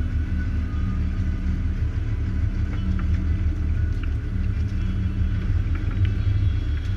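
Sportfishing boat's engine running steadily, a constant low rumble, with a few faint clicks of tackle.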